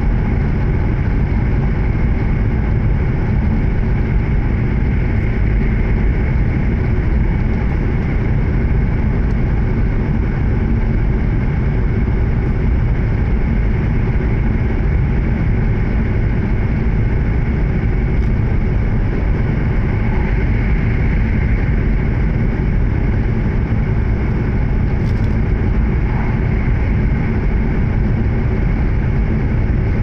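Steady interior running noise of an E7-series Shinkansen car travelling at speed: a constant low rumble from wheels on rails with a hiss of air over it, unchanging throughout.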